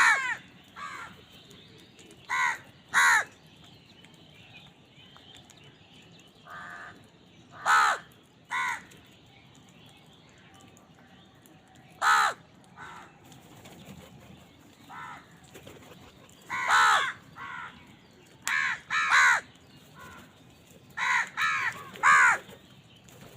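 Crows cawing: short, harsh caws, often two or three in quick succession, repeated at irregular gaps of one to several seconds.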